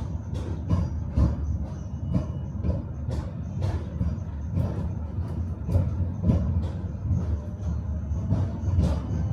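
Tram running on rails: a steady low rumble with the wheels knocking over rail joints and track, sharp knocks coming irregularly about twice a second.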